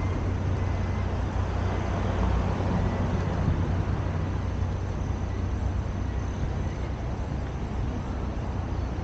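Steady road and traffic noise with a heavy low rumble, unbroken and without distinct events.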